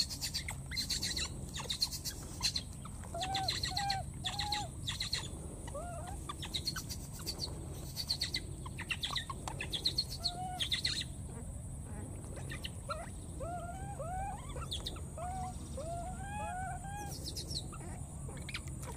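Baby macaques giving short, high squeaky coo calls, each a quick rise and fall in pitch, repeated often and in little runs. Scattered crackling noises fill the first half, over a steady faint high hum.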